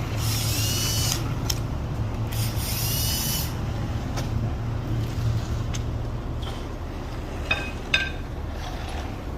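A vehicle engine running with a steady low rumble. Two short hissing bursts carrying a bending whine come in the first few seconds, and two sharp clicks sound near the end.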